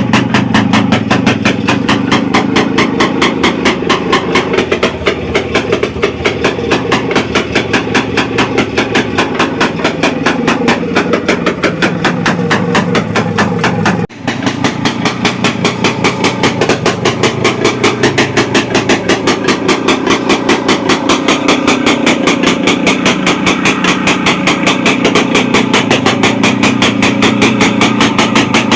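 DKW RT 250 H single-cylinder two-stroke engine running steadily, a rapid even stream of firing pulses. It breaks off for an instant about halfway through, then runs on the same way.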